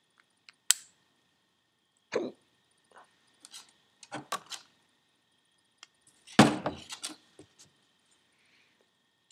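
Small metal turbocharger parts, the thrust collar and an aluminium seal plate, being handled and set down on a workbench: a sharp click, scattered knocks and clinks, and the loudest knock with a short rattle about six and a half seconds in.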